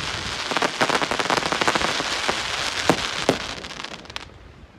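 Fireworks crackling densely overhead, with a handful of sharper bangs in among the crackle, dying away near the end.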